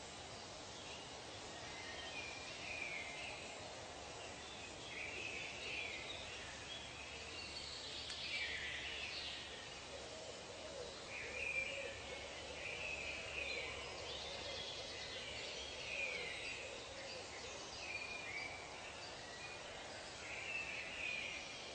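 Birds singing and calling: short chirping phrases repeat every second or two, with lower calls joining about halfway through, over a soft steady hiss.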